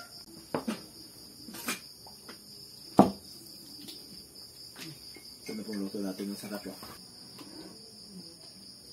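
Crickets chirring steadily, with a few sharp knocks of kitchenware, the loudest about three seconds in.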